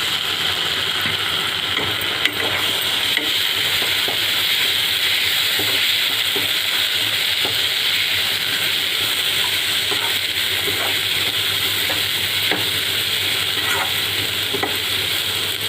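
Spiced vegetable stuffing of onion, capsicum, carrot, peas and cabbage sizzling steadily in a hot pan as it is stirred with a spoon, with a light scrape of the spoon against the pan now and then.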